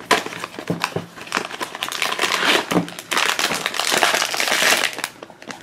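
Crinkling packaging being handled and torn open as the next blind pack is opened, a dense run of crackles that thickens in the second half.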